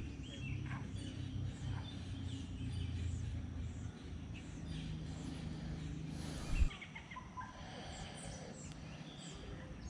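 Small birds chirping over a steady low rumble of outdoor noise, with a single thump about six and a half seconds in.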